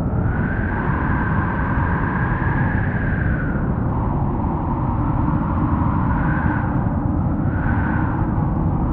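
Strong, cold howling wind: a deep steady rumble with high whistling howls that swell and fade. One long howl comes over the first few seconds, then shorter howls rise and fall more often towards the end.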